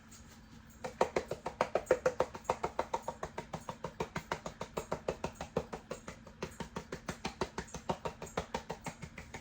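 Pepper grinder being twisted over the chicken: a fast run of even, crunchy clicks, about six a second, with a short break partway through.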